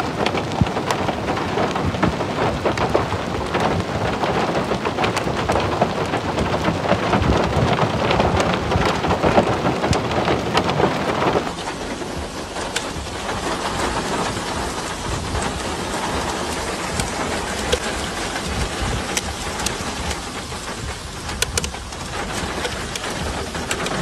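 Hailstones and heavy rain pelting gravel ground in a dense, steady patter of countless small hits. About eleven seconds in, it cuts abruptly to a slightly quieter rush of rain with scattered sharp taps.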